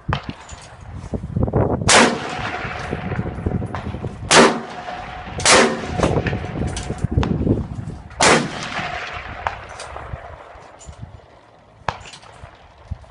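Strong gusty wind rumbling on the microphone, with four loud bangs in the first eight seconds as something is slammed or struck in the gusts. A faint steady whistle sounds under the gusts, and the wind eases near the end.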